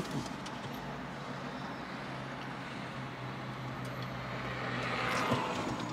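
Steady low hum and road noise heard from inside a car, with outside traffic swelling near the end as a vehicle goes by.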